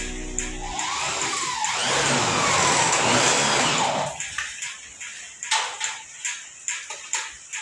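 A power tool runs for about three seconds with a wavering pitch, then stops, followed by a run of sharp taps about twice a second.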